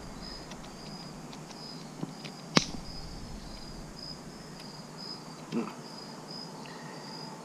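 Steady insect chirping, short high-pitched chirps at about two a second. A single sharp click about a third of the way in is the loudest sound.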